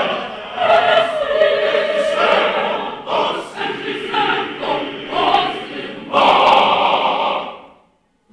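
Large mixed choir of men's and women's voices singing, closing a phrase on a loud held chord that dies away about seven and a half seconds in.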